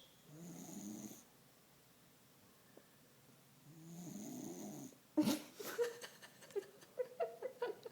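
An American cocker spaniel snoring in deep sleep: two long snores of about a second each, a few seconds apart. About five seconds in, a person breaks into laughter in short repeated bursts, louder than the snores.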